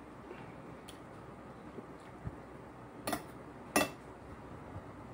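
Spoon and fork clinking against a plate while eating: a few short sharp clicks, a pair about three seconds in and the loudest just after, over a low steady room background.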